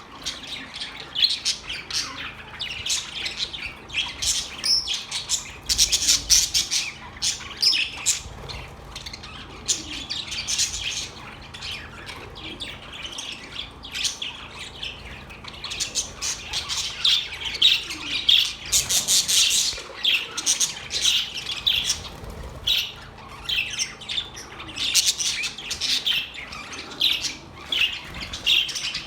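Parrots chirping and squawking over one another in a dense, continuous chatter of short, high calls.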